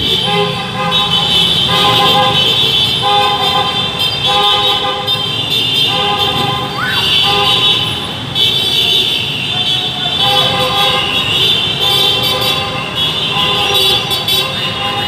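Car horns honking over and over in stopped traffic, several at once, in blasts of about half a second to a second with short breaks between.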